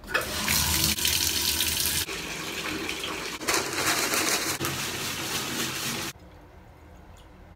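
Bathtub faucet turned on and running hard, water gushing into the tub. It cuts off suddenly about six seconds in.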